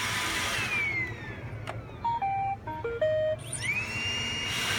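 iRobot Roomba robot vacuum playing its short electronic tune of stepped beeps, then its vacuum motor spinning up with a rising whine that settles into a steady high hum as it starts cleaning.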